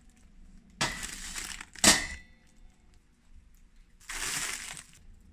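Steel utensils clinking: a stainless-steel tumbler set down on a steel plate resting as a lid on a pot, two knocks with a brief ring about one and two seconds in, the second the louder. A short rustle follows about four seconds in.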